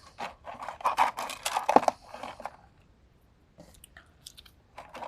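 Small fidget toys being handled and sorted by hand: a quick run of clicking and crinkling, then a few scattered light taps near the end.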